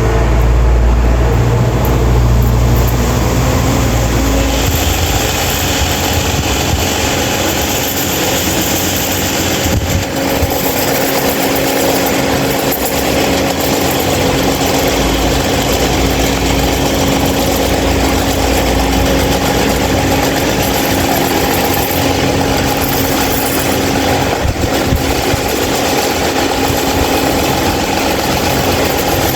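Large 26-inch stand fan running with a loud, steady rush of air and a hum from its motor. A deep rumble in the first few seconds gives way to a brighter, hissier whir about four seconds in, which then holds steady.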